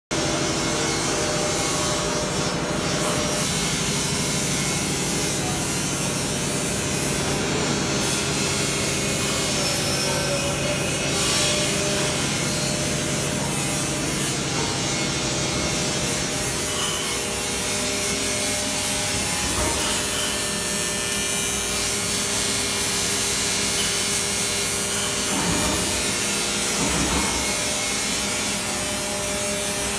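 Steady machinery noise in an aluminium truss workshop: a continuous whirring, rubbing noise with a low hum that changes about seventeen seconds in, and a few faint knocks near the end.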